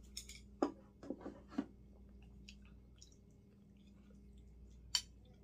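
Close-up mouth sounds of a person eating pumpkin porridge: a few short, wet chewing and smacking sounds about half a second to a second and a half in, and a single sharp click near the end.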